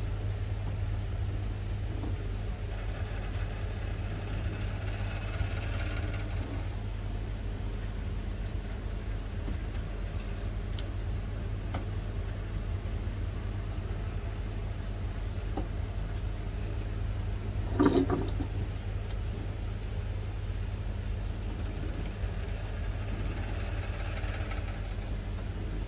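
A steady low hum, with one sharp knock about 18 seconds in.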